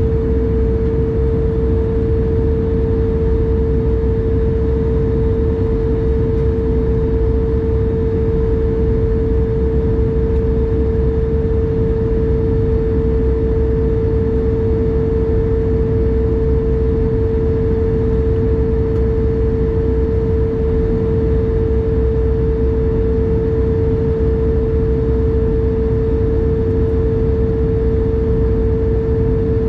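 Airliner cabin noise during the climb after take-off: the wing-mounted turbofan engines and rushing air give a steady deep rumble with a strong droning hum held on one pitch.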